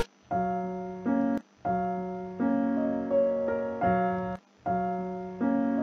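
Keyboard music: a short phrase of held chords that start and stop abruptly, in groups separated by brief gaps of silence.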